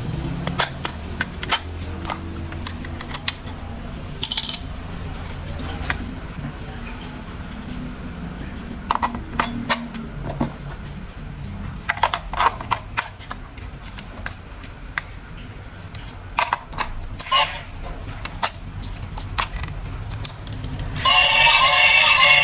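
Scattered light clicks and knocks of plastic toy train parts being handled and fitted together, with a low hum under the first few seconds. Music starts suddenly near the end.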